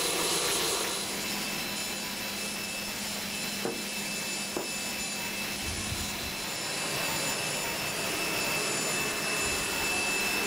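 Steady whine and rush of a jet turbine running on the ground on the prototype Boeing 737, with two short clicks near the middle.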